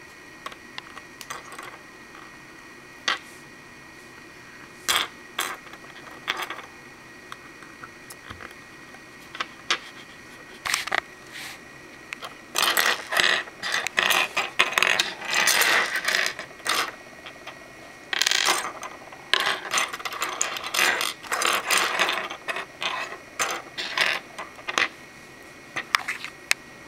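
Plastic Lego Bionicle pieces clicking and clattering on a wooden tabletop as they are picked up and snapped together by hand. Scattered single clicks come first, then two long stretches of busy rattling and snapping about halfway through.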